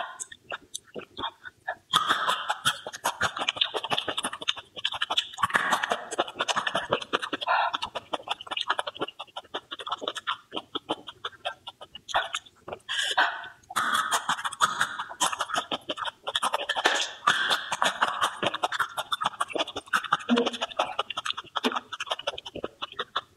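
Close-miked chewing and mouth sounds from a person eating: a fast, dense run of small clicks and crackles.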